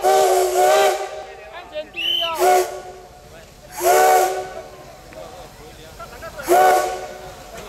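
Steam whistle of CT273, a Japanese-built C57-class steam locomotive, sounding five short blasts of a steady multi-note chord with hissing steam: two close together at the start, then three more spaced about one and a half to two and a half seconds apart. The whistle signals the locomotive setting off from the turntable.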